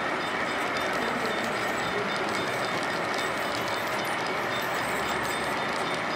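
Model railroad freight cars rolling steadily past on the layout track, giving a constant running noise of wheels on rail with faint ticking from rail joints.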